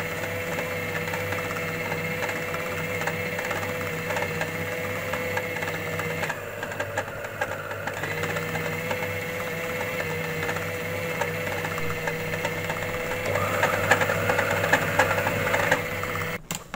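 Anex electric food chopper's motor running steadily as it grinds mutton mince with onion and spices into a smooth kofta paste. It is a little louder and rougher in the last few seconds, then cuts off just before the end.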